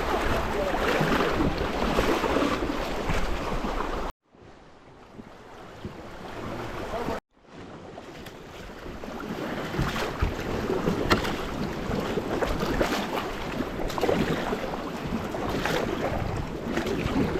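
River water rushing and wind on the microphone as the raft moves along. Two abrupt cuts to silence come about four and seven seconds in, and the stretch between them is quieter and builds up.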